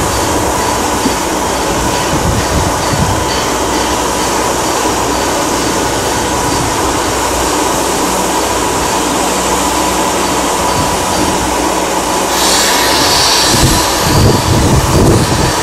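Canadian National 89, a 2-6-0 steam locomotive, standing with steam up, giving a steady hiss. About twelve seconds in, a louder burst of steam hiss lasts about a second, then wind buffets the microphone.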